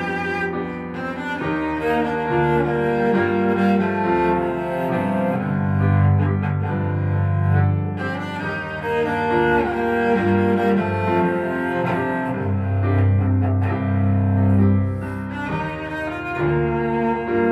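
Cello playing a slow melody of long, sustained bowed notes, accompanied by piano.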